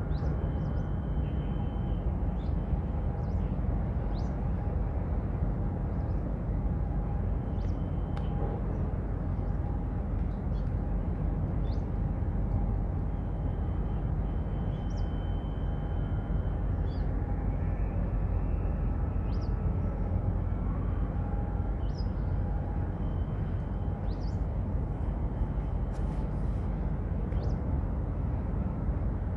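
Harbour background noise: a steady low rumble, with a faint steady whine and short high chirps scattered through.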